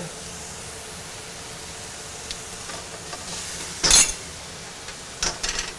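Ground meat and garlic sizzling in a hot wok, with metal tongs scraping and clinking against the pan as they stir; the loudest clank comes about four seconds in, and a few lighter knocks follow near the end.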